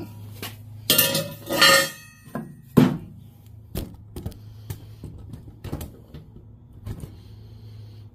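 Metal tools and parts clanking and knocking as they are handled, with a ringing clatter about a second in and a sharp knock near three seconds, over a steady low hum.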